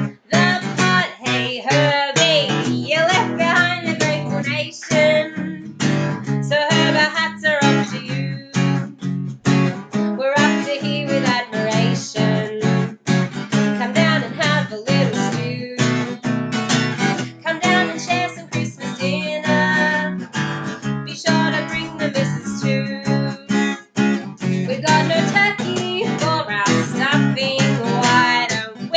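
Song accompanied by a strummed acoustic guitar, with singing voices over the steady chords.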